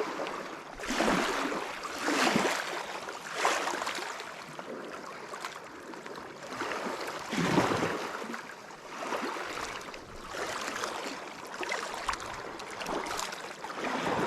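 Water lapping and splashing in repeated swells, about one every second or so.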